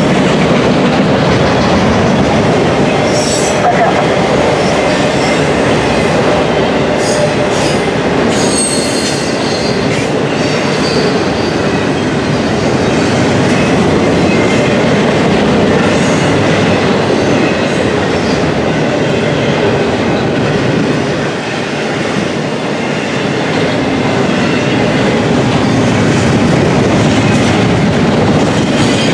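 Freight train's autorack and double-stack intermodal cars rolling past: a steady, loud rumble and clatter of steel wheels on rail. Brief high-pitched wheel squeals come about three seconds in and again from about seven to eleven seconds in.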